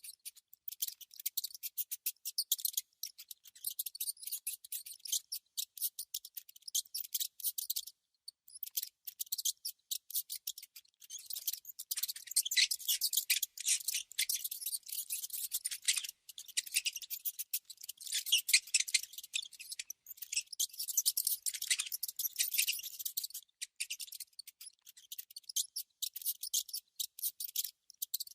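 A mouse making rapid, high-pitched scratchy clicks in dense runs with short gaps, growing louder and busier through the middle.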